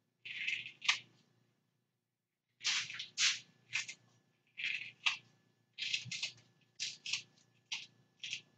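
Kitchen scissors snipping a small red bell pepper into pieces: about a dozen short, crisp cuts, some in quick pairs, with a pause of about a second and a half after the first two.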